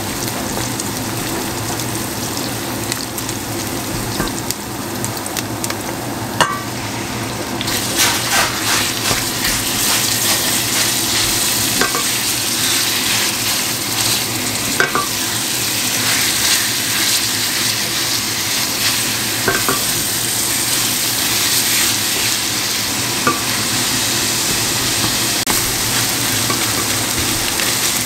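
Onions and minced meat sizzling as they fry in a stainless steel pot, stirred with a wooden spatula that knocks against the pot now and then. The sizzle grows louder and brighter about eight seconds in.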